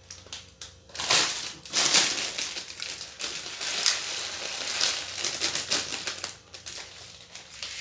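Plastic snack bag of shoestring potato sticks crinkling and rustling as the crisp sticks are shaken out and scattered over the trays. It starts about a second in and eases off near the end.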